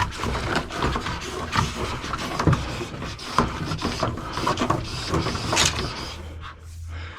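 Electrical cable being pulled and handled through holes in wooden framing: irregular rustling, scraping and light knocks, easing off near the end.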